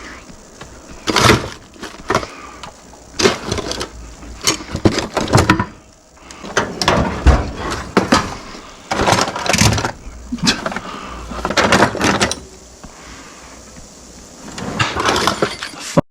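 Metal pick tools scraping, prying and clicking against plastic and metal hood latch parts, in irregular bursts of a second or so with short pauses between.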